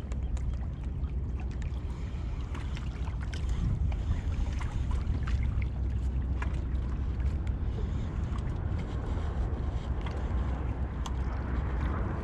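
Steady low rumble of wind buffeting the camera microphone, with scattered small ticks and splashes of water lapping against the jetty rocks.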